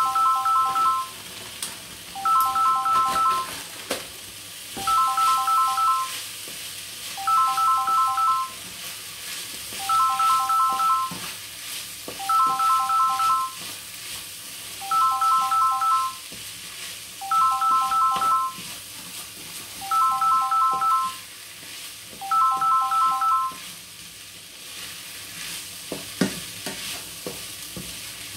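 A phone ringtone, a short run of electronic beeps on three notes, repeats about every two and a half seconds and stops a few seconds before the end. Under it, rice and peas sizzle in a frying pan as a spatula stirs them, with a few knocks of the spatula against the pan near the end.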